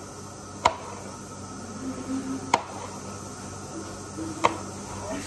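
Kitchen knife chopping onion and green capsicum on a plastic cutting board: three sharp knocks of the blade hitting the board, about two seconds apart, over a low steady hum.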